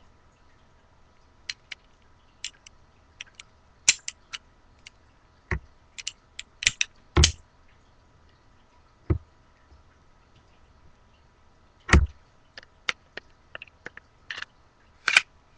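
Polymer-framed Smith & Wesson SW40VE pistol being reassembled by hand: scattered sharp clicks and clacks of the slide and parts being fitted together, with heavier knocks about seven and twelve seconds in.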